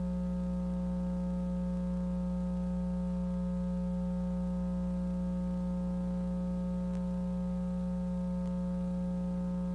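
Steady low electrical hum: one strong low tone with a row of fainter overtones above it, unchanging in pitch and level, with no speech or music over it.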